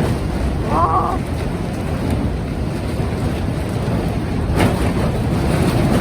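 Strong gale wind buffeting a plastic-film greenhouse: a dense, steady low rush with wind hitting the microphone, and one sharp knock about four and a half seconds in.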